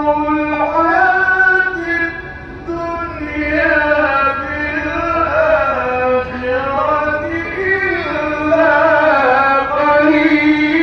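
Male Qur'an reciter chanting in the melodic mujawwad style through a microphone, drawing out long ornamented notes that slowly bend up and down in pitch.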